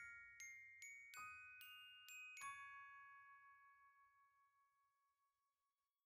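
Quiet background music: bell-like struck notes about every half second, the last one about two and a half seconds in ringing on and fading away to silence.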